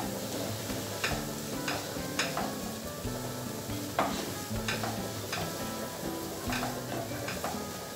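A wooden spoon stirring and scraping grated carrot and onion frying in a nonstick pan, with a spoon scrape about every half second to a second over a steady sizzle.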